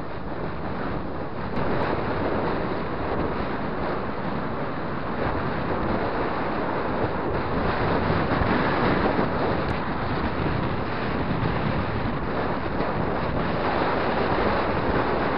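Steady rush of wind buffeting the microphone of a camera riding along on a moving road bike.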